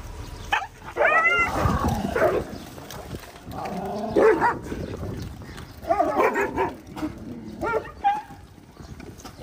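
Dogs whining and yelping in several short calls spread across a few seconds.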